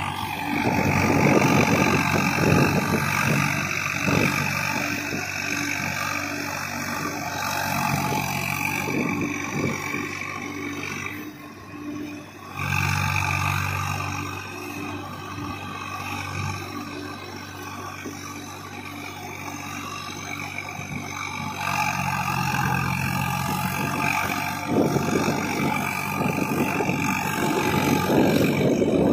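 Swaraj 744 FE tractor's three-cylinder diesel engine running steadily as it pulls through a flooded, muddy field. The engine note dips briefly about twelve seconds in, and a rough rumbling noise lies over it near the start and near the end.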